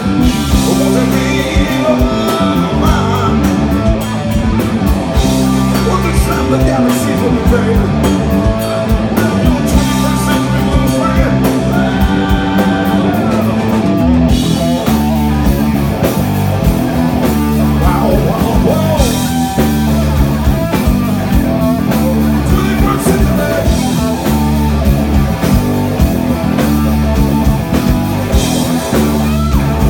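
Live blues-rock band playing an instrumental stretch: electric guitar leading over electric bass and drum kit, with bending guitar notes.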